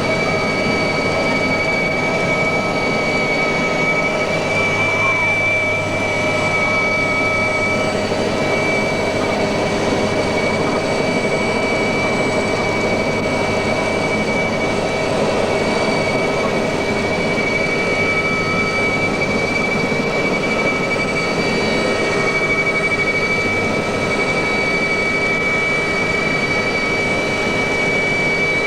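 Mi-2 helicopter in flight heard from inside the cabin: the steady, loud drone of its twin turboshaft engines and rotor, with a constant high whine over it.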